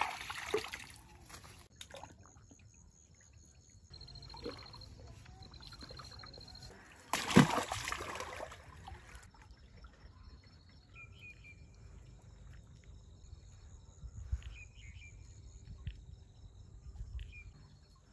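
Large fish splashing and thrashing in a shallow concrete water channel, with a short burst of splashing at the start and a louder one about seven seconds in. After that, water trickles quietly with a few small knocks.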